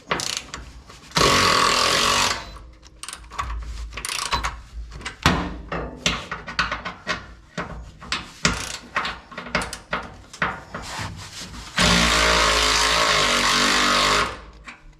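Electric ratchet motor running in two bursts on a tight skid-plate frame bolt that it is struggling to break loose: about a second near the start and about two and a half seconds near the end. Between the bursts come many short clicks and knocks of tools on metal.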